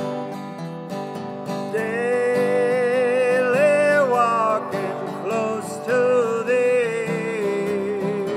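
Slow acoustic guitar music, with a held, gently wavering melody line entering about two seconds in.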